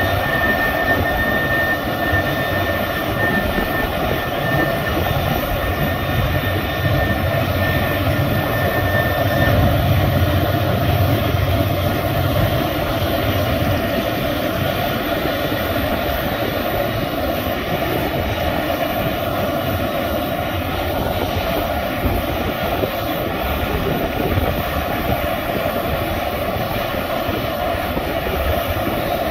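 F-35 jets running on the ramp during start-up: a steady jet roar. A thin high whine sounds over it for about the first nine seconds, and a deeper rumble swells around the middle.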